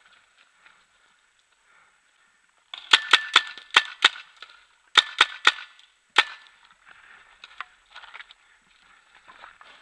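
Paintball marker firing a quick string of about five shots, then three more, then a single shot. Fainter pops follow near the end.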